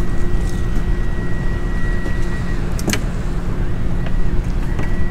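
Steady low hum of a boat's outboard motor running at idle, with one sharp click about three seconds in.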